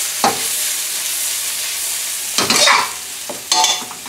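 Chopped onions sizzling in hot oil in a wok, a steady hiss. About two and a half seconds in and again near the end, a metal utensil scrapes and clatters against the pan as the onions are stirred.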